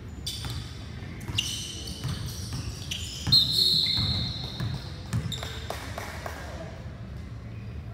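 Basketball game sounds on a hardwood gym floor: the ball bouncing, sneakers squeaking and players calling out. About three seconds in comes the loudest sound, a high squeal lasting nearly a second.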